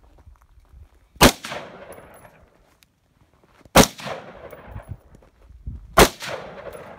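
AR-15 rifle firing three single shots, roughly two and a half seconds apart, each followed by an echo that dies away over about a second.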